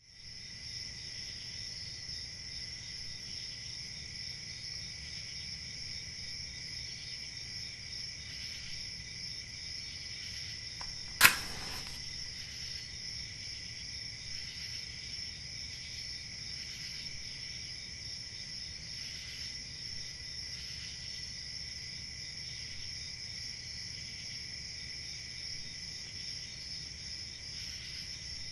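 Steady chorus of crickets chirping at night, with a single sharp match strike and flare about eleven seconds in.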